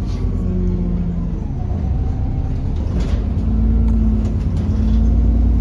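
London bus running along, a steady low engine and road rumble with a droning tone that grows stronger about three and a half seconds in, and one brief click about three seconds in.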